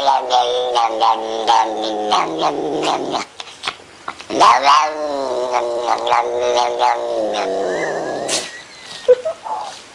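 A pet yowls in two long, wavering calls. The second starts with a sharp upward swoop about four seconds in, and a few short squeaks come near the end.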